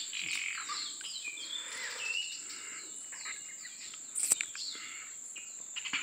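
Small birds chirping in quick, falling notes, with a thin held whistle a little past two seconds in, over a steady high insect drone. One sharp click about four seconds in.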